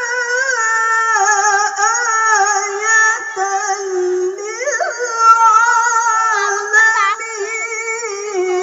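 A woman's voice reciting the Qur'an in the melodic tilawah (mujawwad) style, holding long ornamented notes with quick wavering turns and a sharp upward flourish about halfway through.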